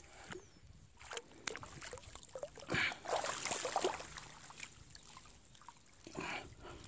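Water sloshing and splashing close to the microphone, with a few sharp knocks about a second in and louder splashing bursts about three seconds in and again near the end.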